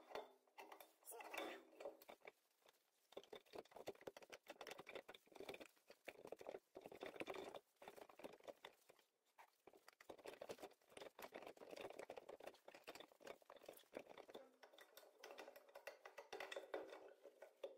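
Faint, rapid clicking and clattering of metal engine parts handled inside a Ural motorcycle engine's crankcase, sped up with the footage.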